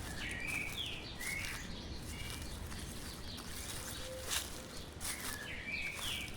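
A songbird singing short phrases of quick sliding chirps, once near the start and again near the end, over an occasional soft crunch of footsteps in dry leaves and a steady low outdoor rumble.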